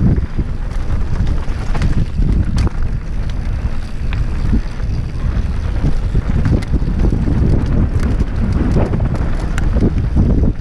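Wind buffeting the microphone of a helmet camera on a mountain bike descending a dirt trail at speed, over a steady rumble of tyres on dirt and frequent short rattles and knocks from the bike on bumps.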